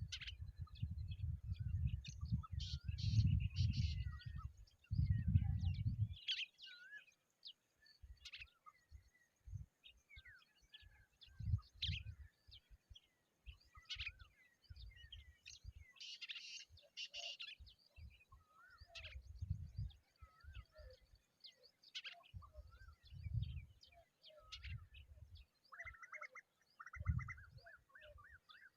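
Several birds chirping and calling in many short notes, with a rapid series of repeated notes near the end. Wind buffets the microphone in a low rumble for the first few seconds, then in brief gusts.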